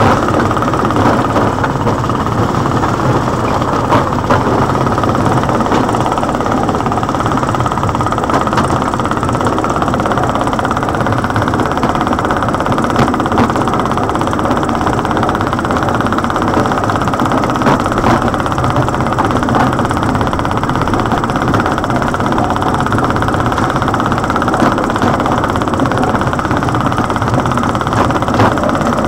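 Small narrow-gauge field railway locomotive's engine running steadily as it pulls along the track, with a few light clicks.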